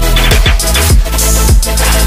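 Electronic dance music with a heavy bass line and a kick drum hitting about twice a second.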